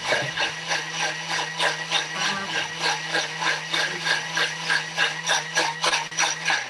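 Thermomix food processor running and blending a juice, a steady motor hum with a regular pulsing beat about three times a second, which stops right at the end.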